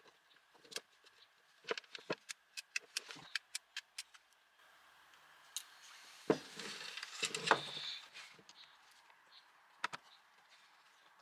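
Scattered clicks and taps of small metal parts and tools being handled during reassembly of a cordless angle grinder, with a rattling scrape of about two seconds starting around six seconds in.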